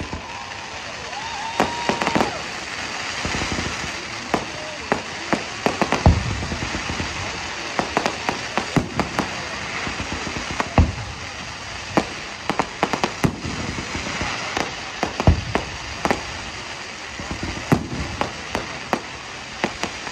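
Fireworks display: a steady run of sharp bangs and crackling from bursting shells, with heavier booms about six, eleven and fifteen seconds in.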